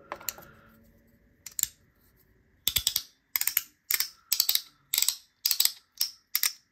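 3D-printed SnapBack haptic slider fidgets being clicked. A few scattered snaps come first. From about halfway in, a regular snapping of about two quick double clicks a second begins.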